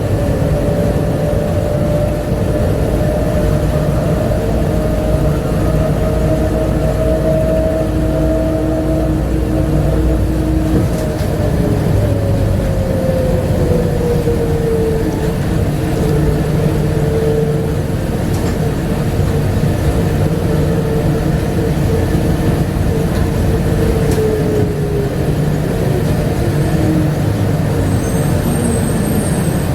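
Bombardier APM100 light-rail people mover running on its rubber tyres: a steady low rumble under a motor whine. The whine holds its pitch at first, slides lower from about a third of the way in, and drops again near the end as the train slows.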